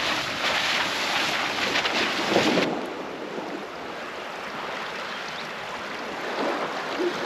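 Toyota LandCruiser 300 Series driving through muddy puddles, water splashing up under its tyres. The splashing cuts off about two and a half seconds in, giving way to a softer, steady hiss of wind and sea.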